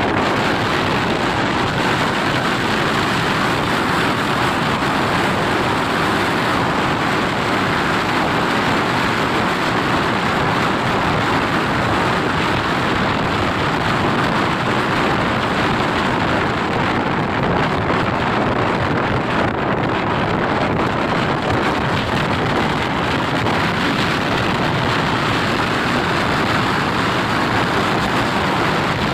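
Steady rush of wind and road noise from a Bajaj Pulsar 220 motorcycle riding at highway speed, even and unbroken throughout.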